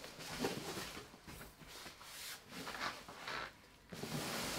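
Faint, intermittent rustling and handling of the white protective wrap as a flat TV panel is slid out of it and lifted, in short scratchy bursts with quiet gaps between.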